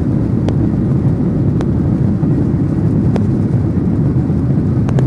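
Cabin noise of a Boeing 737-800 taxiing, heard from a seat over the wing: a steady low rumble from the CFM56 engines at low power and the rolling aircraft, with a few faint, sharp clicks at uneven intervals.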